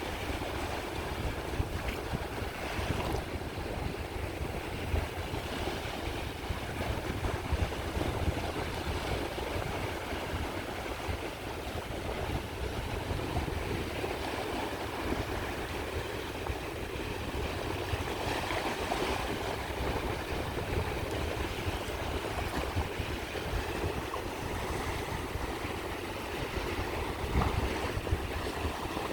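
Sea waves washing onto the shore, a continuous steady surf with no single break standing out.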